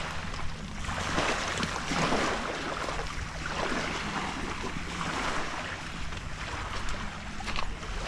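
Wind on the microphone and small waves washing on the beach, swelling and fading every second or two, over a low steady hum.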